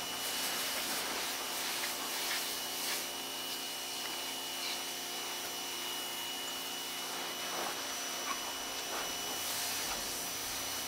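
Bauer 2000 PSI electric pressure washer running steadily, its motor and pump humming under a thin high whine, with the hiss of the wand's water jet spraying onto pavement.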